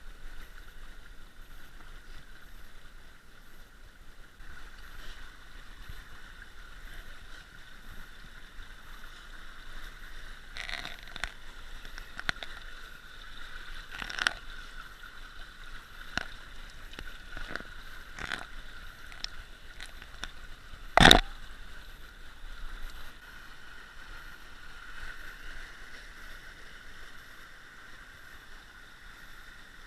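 Shallow creek water running steadily over shale. Scattered clicks and knocks sound through the middle, with one sharp, loud knock about two-thirds of the way in.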